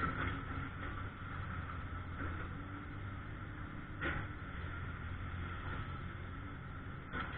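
An engine running steadily, with a sharp knock about four seconds in and another near the end.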